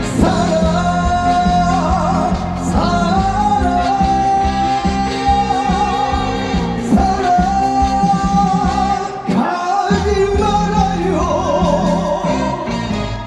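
Live trot music from a stage band: a long held melody note with a wavering vibrato over steady bass and keyboard backing, between sung lines of the song.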